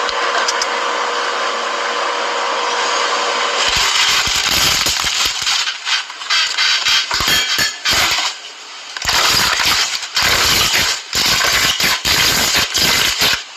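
Slime being squished and worked by hand: a steady hiss for the first few seconds, then a dense run of irregular crackles and pops with short pauses.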